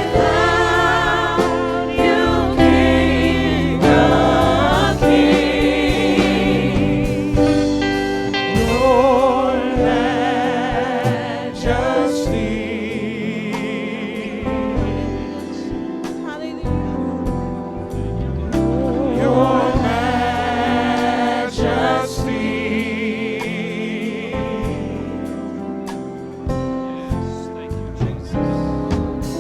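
Choir singing a gospel song, voices holding long notes with vibrato.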